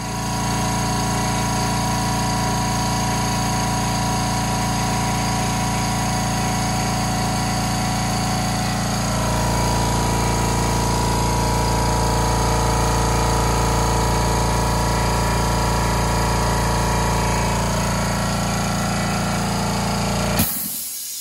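California Air Tools twin-tank oil-free air compressor running steadily, filling its tanks; its tone shifts about nine seconds in. Near the end it shuts off with a click and a brief hiss of air.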